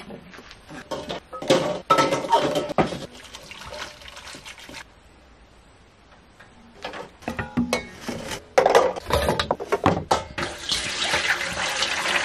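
Stainless steel basins and dishes clanking and clattering as they are handled, with a quieter stretch in the middle. Near the end, a steady stream of water poured from a plastic jug into a metal basin.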